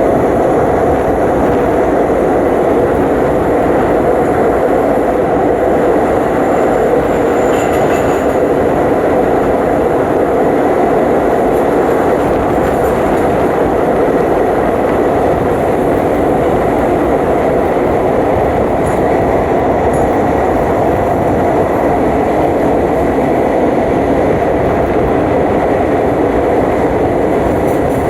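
Passenger train running along the track: a steady, loud rumble and rush of wheels on rails, with a brief faint high squeak about eight seconds in.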